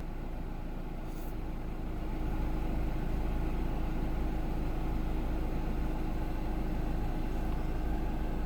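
2013 Nissan Rogue's engine idling steadily, a low even rumble.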